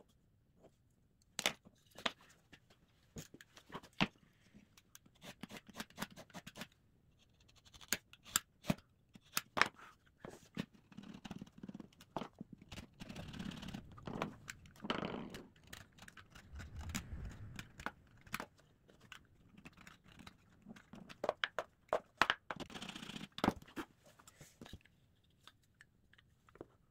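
Utility knife scoring and scraping plywood, mixed with scattered clicks and knocks as plywood pieces and a steel blade are handled on a wooden bench, with a few longer scraping stretches in the middle.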